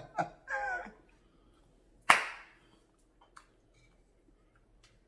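A woman's brief vocal sounds, then one sharp smack about two seconds in, the loudest sound, with a short ringing tail, followed by a few faint small clicks.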